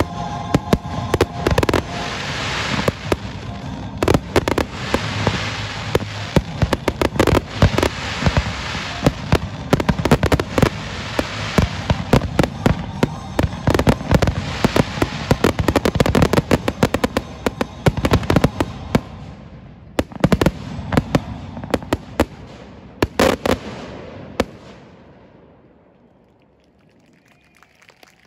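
Aerial fireworks bursting in a dense, rapid barrage of bangs and crackle. The bursts thin out after about twenty seconds and die away to quiet near the end.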